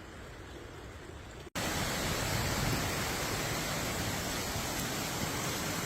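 Steady rush of fast-flowing water, a torrent or falls. About a second and a half in it cuts out for an instant and comes back noticeably louder and fuller.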